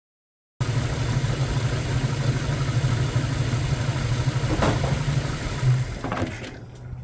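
1994 Jeep Wrangler YJ engine idling steadily. About six seconds in the sound falls away abruptly, leaving a faint steady low hum.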